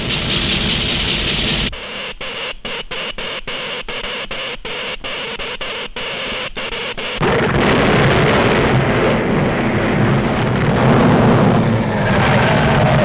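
Cartoon sound effects of an electrical discharge crackling and buzzing, stuttering on and off about three times a second, as current is driven down a cable into the bedrock. About seven seconds in, a louder, steady rumble of the earthquake takes over.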